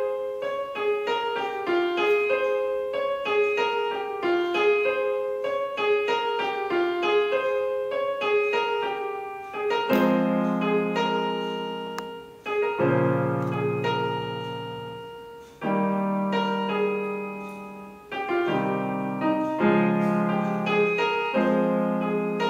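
Solo piano music: a fast, flowing pattern of notes in the middle range, joined by deeper bass chords about ten seconds in, swelling and fading in phrases.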